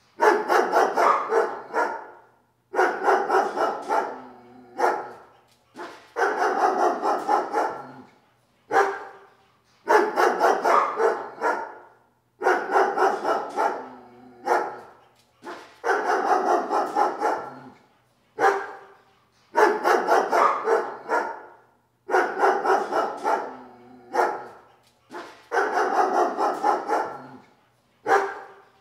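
Dog barking in rapid runs of about two seconds each, repeating roughly every three seconds with a single short bark just before each run, in a very regular pattern.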